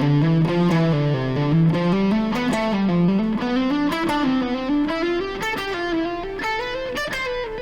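Guitar playing a fast C major scale run, three notes per string, in sequences of four notes (up four, back down) that move stepwise up and down the neck.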